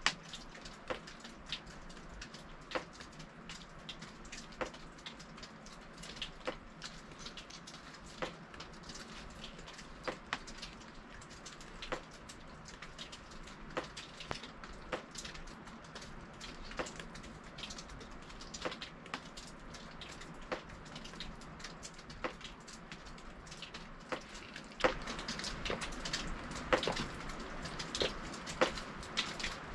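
Wood fire crackling, with irregular sharp pops over a steady hiss; the fire grows louder and busier near the end.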